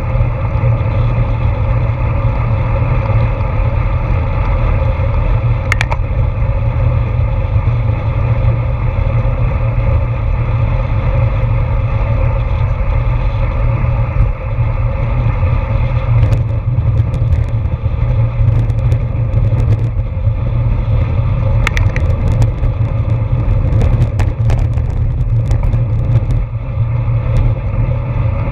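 Steady wind rumble on a bicycle-mounted action camera's microphone while riding at race speed, with road and tyre noise, and scattered sharp clicks and rattles from the bike in the second half.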